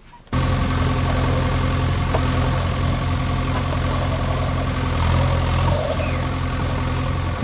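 Vehicle engine idling steadily with a low rumble, cutting in suddenly just after the start: a dubbed engine sound effect, not the push-along toy itself.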